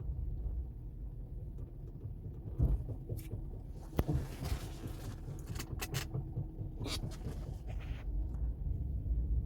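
Mercedes-Benz W124 500E V8 idling with a steady low rumble, with a handful of sharp, irregular clicks over it. This is the cold-idle state in which the owner hears a knock that he suspects comes from the torque converter, the flexplate or a rod/piston.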